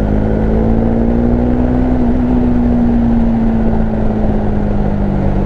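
Bajaj Dominar's single-cylinder engine pulling under throttle. Its note rises gently for the first few seconds, then eases off, over a steady low wind rumble on the riding microphone.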